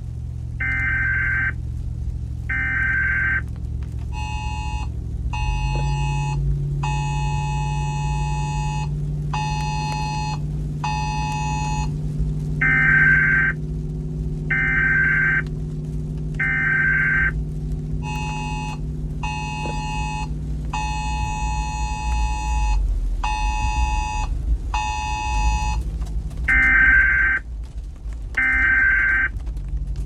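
Electronic alert tones repeating in a cycle. Three single high beeps about a second apart alternate with runs of pulsed, chord-like two-tone bleeps, over a low electronic drone that comes in after about five seconds and fades near the three-quarter mark.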